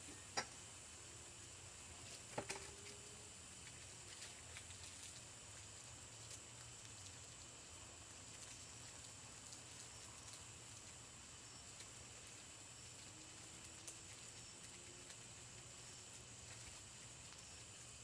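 Near silence: a faint steady hiss with a few soft clicks, the clearest about two and a half seconds in.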